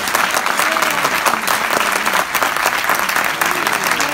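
A large auditorium audience applauding steadily, with a few voices faintly heard through the clapping.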